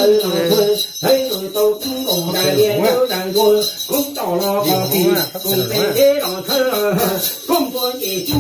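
Hmong shaman chanting in a rising and falling voice during a neeb healing ceremony, over the steady jingling of a shaken metal ring rattle.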